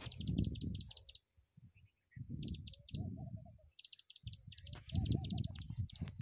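Birds calling in the field: runs of rapid, high, short chirps with a few lower piping notes. Louder low rumbling bursts come and go three times over them.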